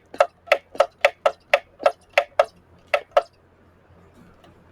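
A run of about a dozen short, sharp clicks or taps at an uneven pace of roughly three a second, stopping a little past three seconds in.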